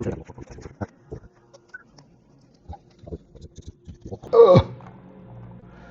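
Plastic LEGO bricks clicking and rattling as they are handled and pressed together, in a string of small irregular clicks. About four seconds in, a short louder sound slides steeply down in pitch.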